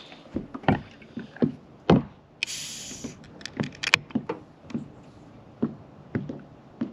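Irregular knocks and taps of things being handled against a kayak's hull, the heaviest about two seconds in, with a short hiss about half a second later.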